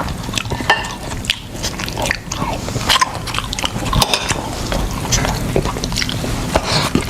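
Eating sounds of a seafood meal: chewing and biting, with many short irregular crackles and clicks.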